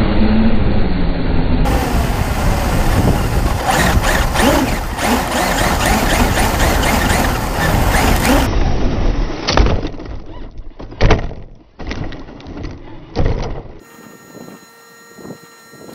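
Onboard sound of a Traxxas UDR RC truck driving fast over grass and dirt: a loud, dense rush of motor, wind and tyre noise for the first half. It then gives way to several sharp knocks as the truck bounces and tips over, with a few faint steady tones near the end.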